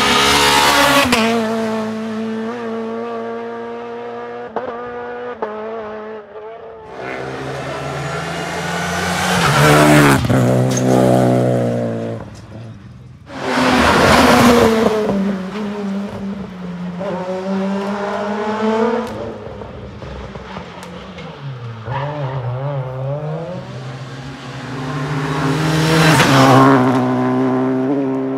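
Rally cars at full throttle on a tarmac special stage: engines revving hard, pitch climbing through each gear and dropping at every shift, loud at each of several close passes.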